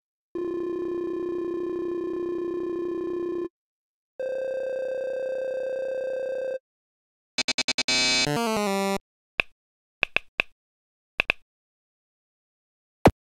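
Electronic tones: two steady held tones of about three seconds each, the second higher than the first, then a quick run of beeps and a stepping pitch pattern, followed by a few short scattered blips.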